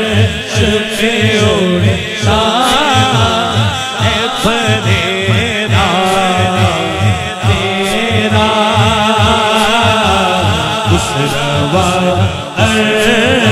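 A man singing a naat through a microphone in long, wavering melismatic lines, over a steady low drumbeat.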